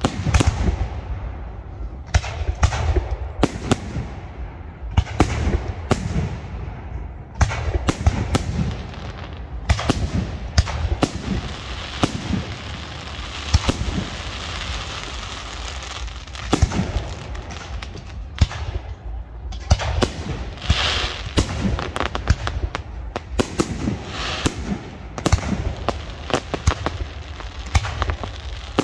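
Aerial fireworks display: shell bursts go off one after another, often several a second, with a denser hissing, crackling stretch about halfway through.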